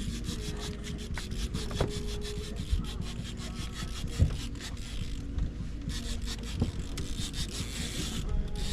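Fishing reel being cranked, its gears giving a fast, even, rasping run of ticks that grows louder near the end.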